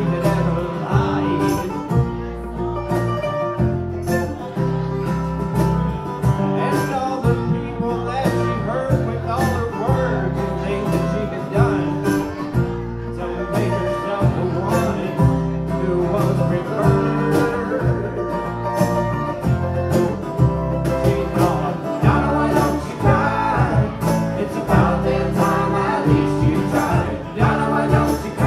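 Live band playing a country-style song on strummed and picked acoustic guitars.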